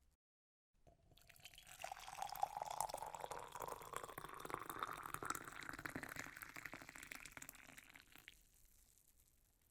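Coffee being poured into a cup in a steady stream, starting about a second in. Its pitch rises steadily as the cup fills, and the pour tapers off near the end.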